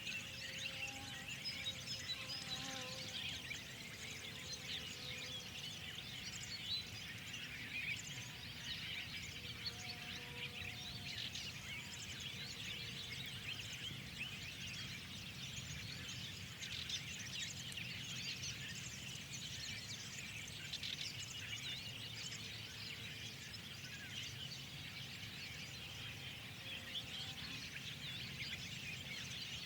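A spring chorus of many small birds chirping and twittering without pause, with a few longer whistled notes among them, over a steady low rumble.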